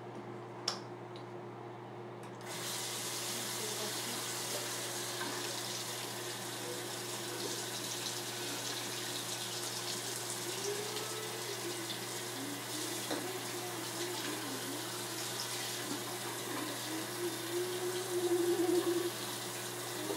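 Bathroom sink tap turned on about two and a half seconds in, then water running steadily into the basin. In the second half a wavering pitched hum rides over it, loudest near the end.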